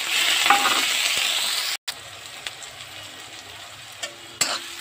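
Chopped onions sizzling loudly in hot oil in a kadai, just after being tipped in. About two seconds in the sizzle drops abruptly to a quieter frying hiss, and near the end a spatula scrapes and clicks against the pan as the onions are stirred.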